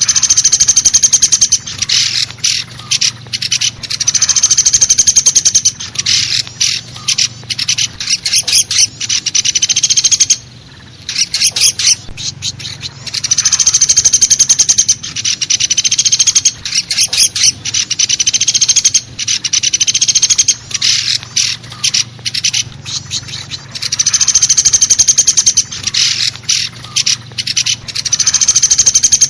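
Woodpecker ('pelatuk besi') calls from a bird-lure recording: loud, fast rattling trills, each lasting a second or two and repeated again and again with short breaks between them.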